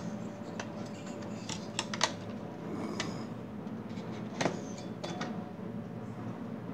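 Scattered light clicks and taps from the server's processor board and its hard parts being handled, loudest about two seconds in and again past four seconds, over a steady low hum.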